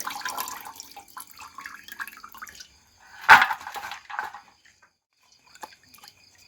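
Water splashing and dripping in irregular bursts, with one louder splash about three seconds in; crickets chirp faintly in the second half.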